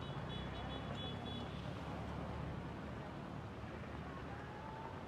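Steady street noise: rain hiss and traffic rumble on a wet road. A quick run of short high beeps sounds in the first second and a half.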